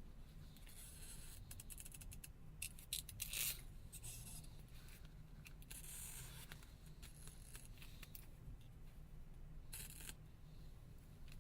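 Faint crackling and scraping as a phone's stretch-release battery adhesive tabs are pulled out from under the battery, in short scratchy spells with clusters of small clicks, over a steady low hum.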